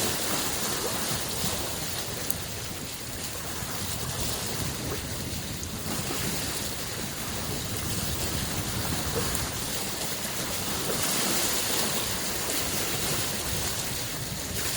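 Small lake waves washing against the shore in a continuous hiss, swelling and easing gently, with one fuller swell near the end.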